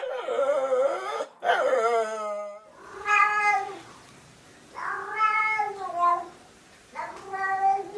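A pet 'talking': a series of five drawn-out, meow-like yowls that bend up and down in pitch, each about a second long, with short pauses between them.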